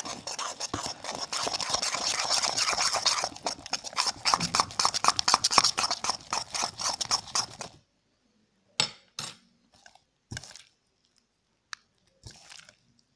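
Freshly mixed slime being stirred and squeezed in a bowl: dense, crackly wet squishing for about eight seconds that stops suddenly, then a few short separate squishes and clicks.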